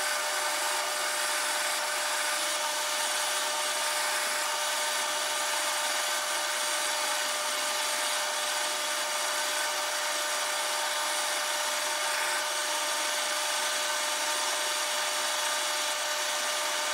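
Metal lathe running under power feed while its tool takes a dry cut, with no cutting oil, along an aluminium bar: a steady whine with a held tone, even in level throughout.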